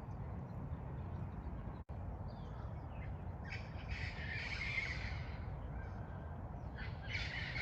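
Indian peafowl hens giving harsh, honking contact calls: a run of them a few seconds in and more starting near the end, over a low steady rumble.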